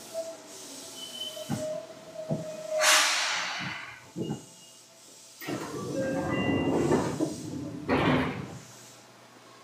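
Inside a Seibu 2000 series electric commuter train car: two loud hisses of compressed air, about three seconds in and again near the end. A few knocks come before them and a rumbling stretch lies between them, from the car's air-operated equipment as the train stands at a station.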